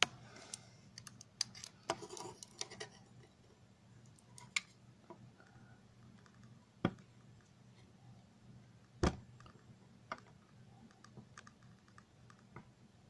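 Faint clicks and scrapes of a utility knife blade working into the glue at the edge of a CPU's heat spreader, to lift it off the chip. A quick run of clicks comes in the first three seconds, then scattered ticks, with two sharper knocks about seven and nine seconds in.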